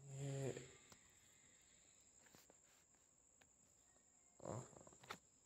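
Near silence with a faint steady high-pitched whine, broken by a short hummed vocal sound at the start and a brief rustle and click about four and a half seconds in.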